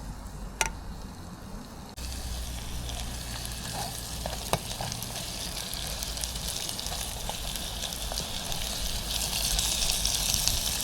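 Beef and vegetables sizzling as they fry in a pan. The sizzling starts abruptly about two seconds in and grows louder near the end, with a couple of sharp clicks and a low wind rumble on the microphone.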